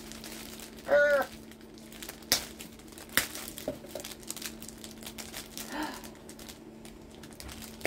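Crinkling and rustling of a plush dog toy and its packaging being handled, with a few sharp crackles. A short squeak about a second in is the loudest sound.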